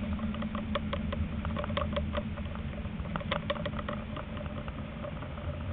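Tram running along its track, heard from inside the cab: a steady low hum with light, irregular ticks and taps scattered over it, clustered around the middle.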